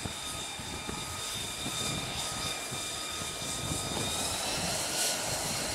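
F-35C's F135 turbofan running at taxi power: a steady jet whine made of several high tones over a rushing noise, rising a little in pitch about four seconds in.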